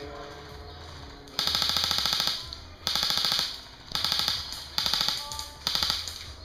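Airsoft electric rifles firing on full auto: five short bursts, each a rapid clatter of shots, the first and longest about a second long.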